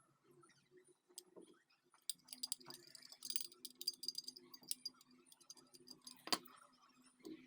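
Small metal parts of a Zippo lighter clinking and clicking as they are handled, a quick irregular run of light taps with a faint metallic ring. One sharper click comes about six seconds in.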